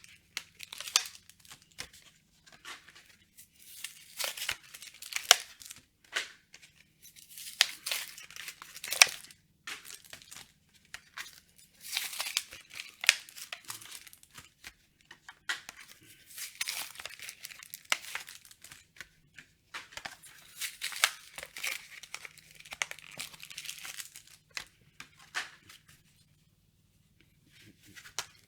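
Yu-Gi-Oh trading card blister packaging and foil booster packs being torn open by hand, with crinkling, in a string of bursts separated by short pauses; it goes quiet for a couple of seconds near the end.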